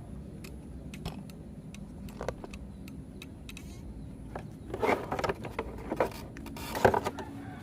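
Scattered irregular clicks and two short bouts of clattering, about five and seven seconds in, like small hard parts being handled, over a steady low hum.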